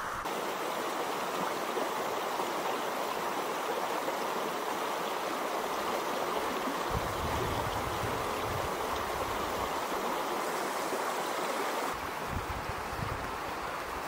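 Shallow rocky stream running, a steady rush of water, dropping a little in level about twelve seconds in.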